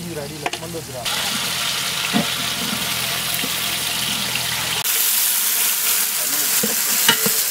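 Onions and whole spices frying in hot oil in a large pot: a steady sizzle that gets louder about five seconds in.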